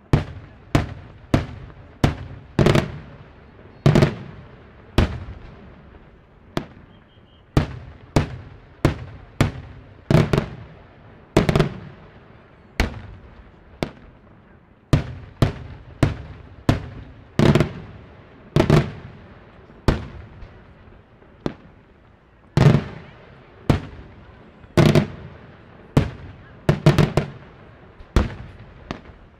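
Daytime fireworks: aerial shells bursting overhead in a steady string of loud bangs, roughly one or two a second, each with a short echo.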